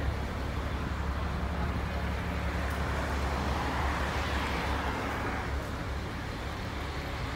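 Road traffic: engines and tyres running steadily, with a pickup truck passing close about four seconds in.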